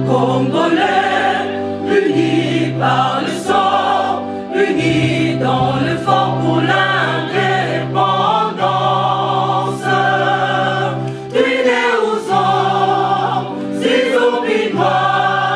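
Choral music in a gospel style: a choir singing in phrases of one to two seconds over held low bass notes.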